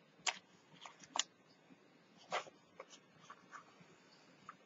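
Light handling of paper and chipboard pieces: scattered soft taps and paper rustles, with three sharper clicks about a second apart.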